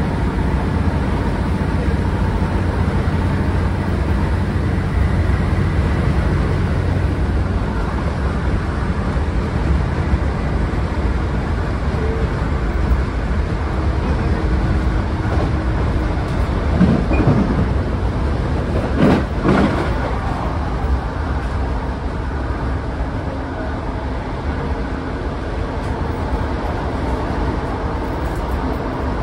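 Cabin of a Northern Class 150 diesel multiple unit under way: steady low rumble of its underfloor Cummins diesel engines and the wheels on the rails. Two brief louder sounds stand out about 17 and 19 seconds in.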